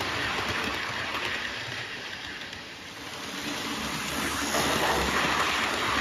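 Model railway train running along the track past the microphone, a steady rattle and rumble of wheels on rail. It fades a little around the middle and grows louder again about four seconds in.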